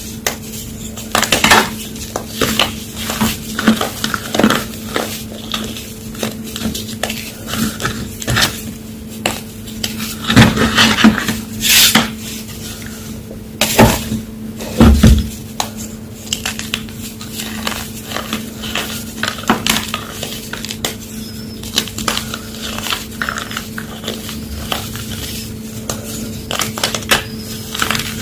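A homemade gym chalk block being crushed, giving sharp, irregular crunching crackles, the loudest clusters about halfway through. A steady low hum runs underneath.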